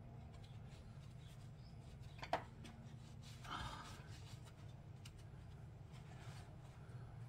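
Quiet handling noises over a steady low hum: one sharp click a little over two seconds in and a brief rustle at about three and a half seconds.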